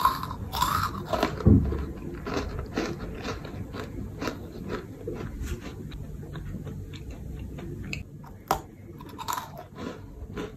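Crisp cranberry butter cookie being bitten and chewed close to the microphone: a few sharp bites in the first second or two and again near the end, with a steady run of small crunches between them as it is chewed.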